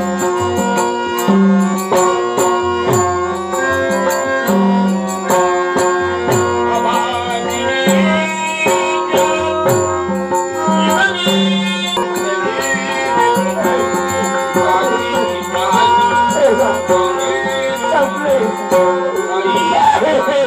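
Dashavatar stage accompaniment: a harmonium holds steady notes over the rolling bass and treble strokes of a pakhawaj drum, while small cymbals tick out an even beat.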